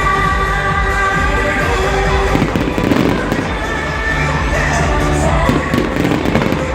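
Fireworks going off in a string of quick pops and crackles, with music playing throughout.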